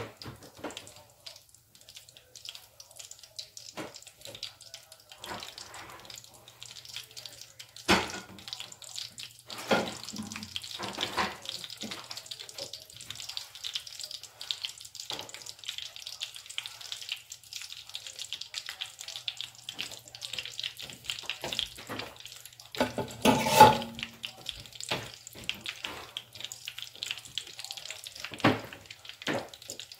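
Eggplant balls deep-frying in a small saucepan of hot oil: a steady sizzle with scattered crackles and pops, and a louder cluster of popping about two-thirds of the way through.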